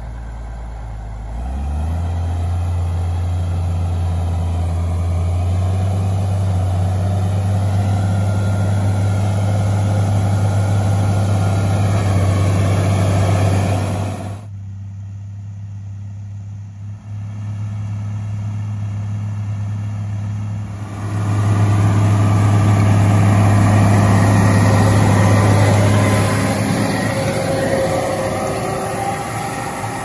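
Case Magnum 7240 Pro tractor's six-cylinder diesel engine running steadily under load while pulling a seed drill across a field. The sound drops abruptly about halfway through and swells again as the tractor comes close.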